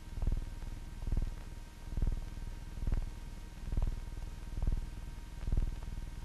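Slow, steady low drum beat in a film's background score, a little more than one beat a second.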